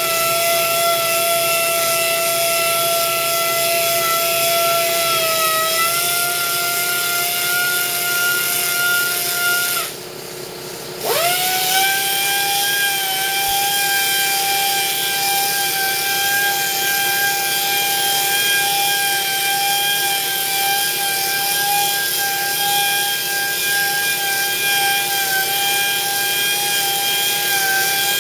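Pneumatic mini polisher with a foam pad running at a steady high whine over a hiss of air, buffing painted motorcycle bodywork to clear the polish residue. About ten seconds in it stops for a second, then spins back up with a rising whine.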